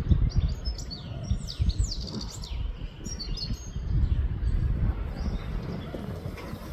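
European goldfinch twittering: a quick run of high, rising and falling chirps in the first half, fading out after about three seconds, over a steady low rumble.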